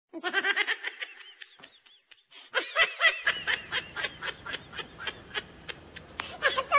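Laughter sound effect: rapid runs of cackling in quick repeated bursts, pausing briefly about two seconds in, then going on again.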